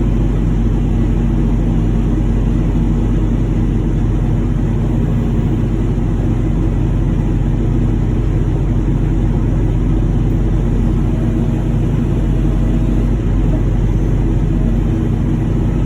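Machinery running steadily: a loud low rumble with a constant hum that holds one pitch and level.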